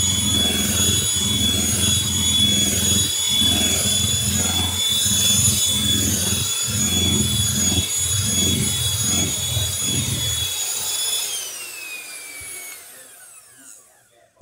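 Electric hand mixer running at steady speed, its beaters churning through thick banana bread batter in a plastic bowl, with a high motor whine over the churning. About eleven seconds in it is switched off and the whine falls in pitch as the motor winds down.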